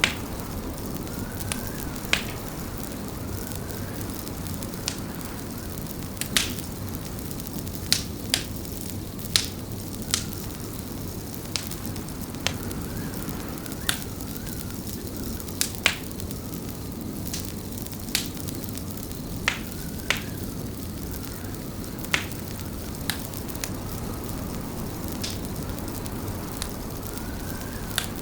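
Wood fire crackling in a fireplace: irregular sharp pops and snaps, about one or two a second, over a steady low rush.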